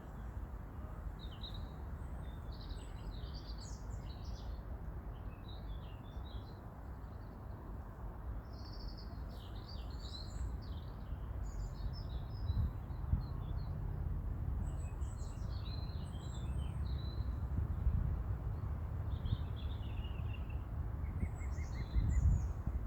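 Several small songbirds singing and chirping in quick, varied phrases, with a fast run of short repeated notes near the end. A steady low rumble runs underneath and grows stronger about halfway through.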